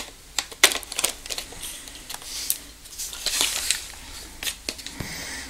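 Handling noise of camera gear: scattered hard plastic clicks and a short rubbing scrape as a flash unit and a camera are fitted together by hand.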